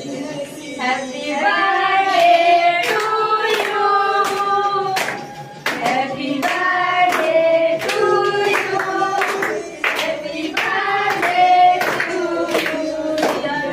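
A group of girls and women singing a birthday song together while clapping along in time, about two claps a second.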